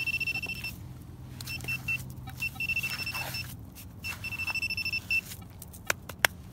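Metal-detecting pinpointer sounding a steady high-pitched alert tone that breaks off and resumes several times as it is worked over a metal target in the dig hole. Two sharp clicks come near the end.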